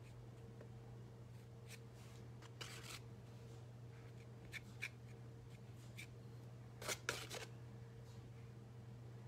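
Faint scrapes and taps of a palette knife picking up and spreading thick acrylic paint, thickened with gel medium, on sketchbook paper, a few short strokes with the loudest cluster near the end. A steady low hum runs underneath.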